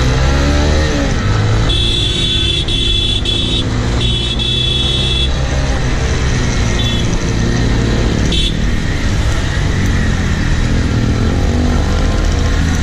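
Motorcycle engine running under way in traffic, rising in pitch in the first second as it accelerates. A high-pitched vehicle horn sounds in two long honks between about two and five seconds in, with two short beeps a few seconds later.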